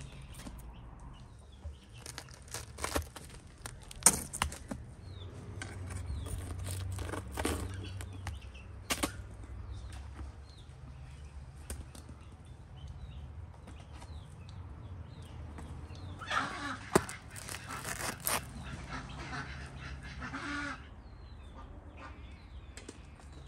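Farmyard fowl calling, with scattered sharp knocks and clicks as baked loaves and a metal hook are handled at a brick tandoor oven.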